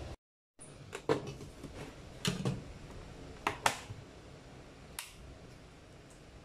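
Sharp clicks and knocks from handling a Panasonic electric rice cooker, the lid latching shut, coming roughly in pairs, then a single click about five seconds in as a button on its control panel is pressed.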